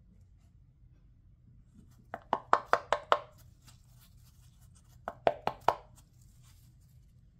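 Solid silk taffeta swatch crumpled and flexed between gloved fingers, giving two quick runs of sharp, crisp crinkles about three seconds apart.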